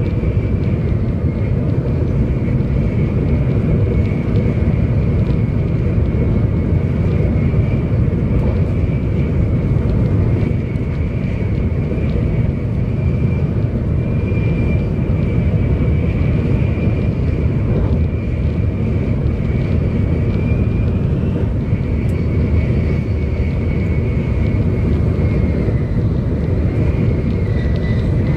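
Cabin noise of a 700 series Shinkansen running at speed: a steady low rumble with a faint, steady high whine above it.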